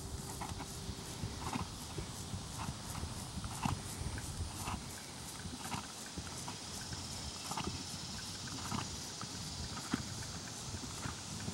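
Hoofbeats of a Trakehner gelding moving under a rider on grass: soft knocks and thuds coming about once a second.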